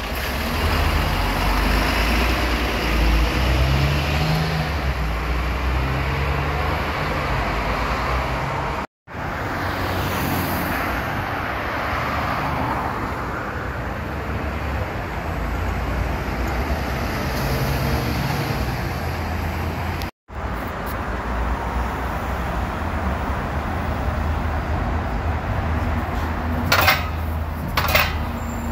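Diesel city buses running close by, one standing at a stop and one on the street, with a steady low engine hum and traffic noise. The sound is in three clips separated by two abrupt cuts. Near the end there are two short, sharp sounds.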